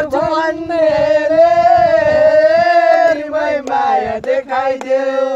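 A man singing out a long, loud held note that wavers slightly for about three seconds, then breaking into shorter sung phrases.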